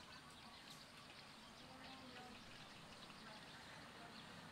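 Near silence: faint background noise with a few faint, indistinct voices or chirps.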